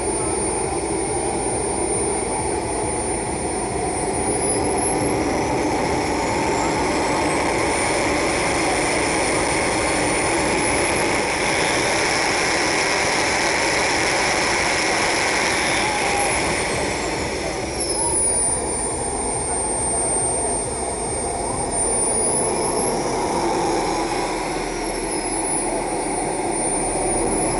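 Small jet engine of a model jet car running steadily: a continuous rushing jet noise with a thin high whine that rises and falls in pitch a few times as the engine speeds up and slows.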